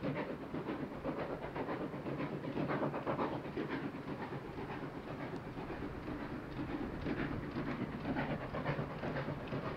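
Steam locomotive 'Speyerbach' of the Kuckucksbähnel running with a short train of old coaches: a steady rhythm of chuffs and wheel clatter on the rails.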